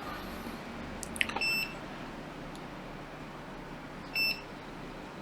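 Two short, high electronic beeps from bench repair equipment, about three seconds apart. The first comes right after a click.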